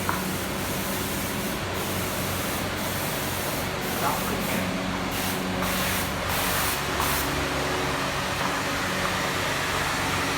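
Paint spray gun hissing steadily as it sprays dye onto leather car seats, with a faint low hum underneath.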